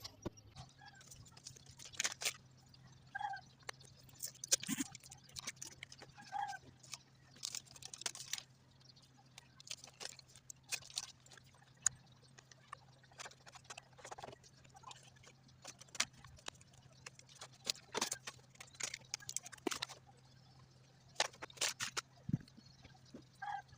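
Hands handling a tablet's packaging: scattered clicks, taps and rustles of cardboard and plastic at irregular intervals, over a steady low hum.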